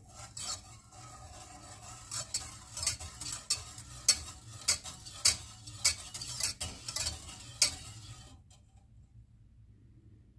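Wire whisk stirring milk in a stainless steel saucepan, its wires clicking and scraping against the pan in an irregular run of taps that stops about eight seconds in. Semolina is being whisked into the milk so that it does not form lumps.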